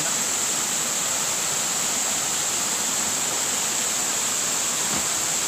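Small waterfall pouring over rock into a pool: a steady rush of water.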